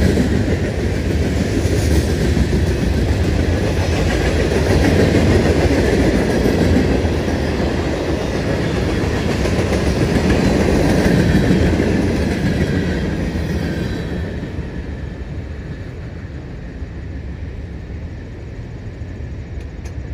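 Freight cars of a CSX manifest train rolling past at about 36 mph, steel wheels running steadily over the rails. About two-thirds of the way through, the last car goes by and the sound drops away and fades.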